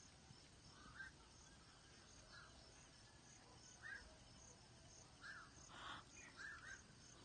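Faint wetland ambience in the dark: a bird giving short calls about every second and a half, two close together near the end, over steady, evenly spaced insect chirping.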